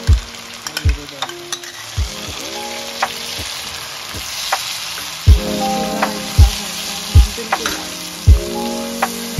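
Chicken and yogurt sizzling in hot oil in a karahi, stirred with a spatula. Background music with a deep beat about once a second is louder than the sizzle.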